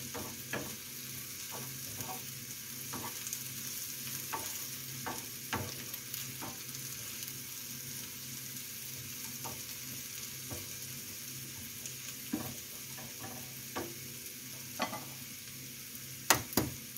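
Wild asparagus and onions sizzling steadily in a frying pan while a wooden spoon stirs them, with scattered light taps and scrapes of the spoon on the pan. A couple of louder knocks come near the end.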